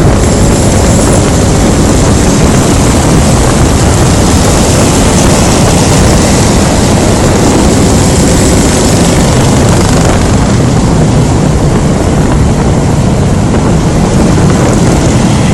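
Loud, steady wind and road noise from riding a Honda Scoopy scooter, picked up by a Samsung Galaxy S2 phone microphone stuck on the rider's helmet.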